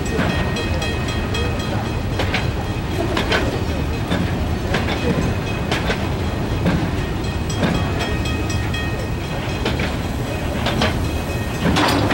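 Freight hopper wagons rolling slowly past, a steady rumble broken by wheel clacks over the rail joints about every second or so.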